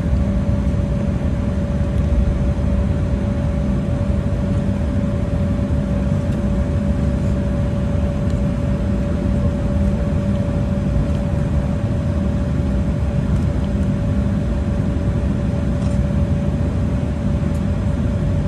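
Cabin noise of an Embraer E190 taxiing: its CF34 turbofan engines at taxi power make a steady low rumble, with a steady mid-pitched hum over it.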